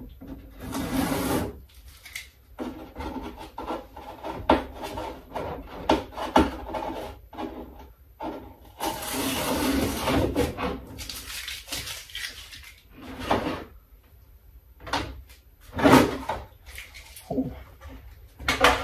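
Parts and their packaging being handled and pulled out of a large model airplane fuselage: irregular rustling with many small knocks and bumps, and a longer stretch of rustling about nine to eleven seconds in.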